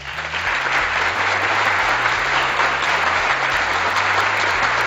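Recorded crowd applause, starting abruptly and staying steady, over quiet background music.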